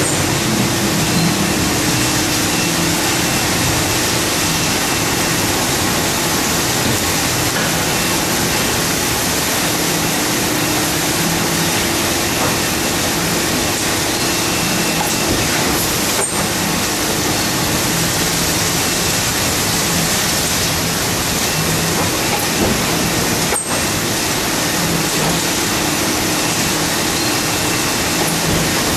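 Wohlenberg 137 paper cutting line running: steady, loud machine noise with a low hum that comes and goes.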